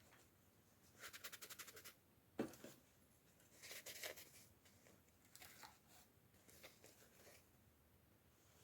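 Quiet handling of toy packaging. About a second in comes a rapid string of clicks, like a tear or zip being pulled, then a single sharp knock, a crinkly rustle, and a few small taps.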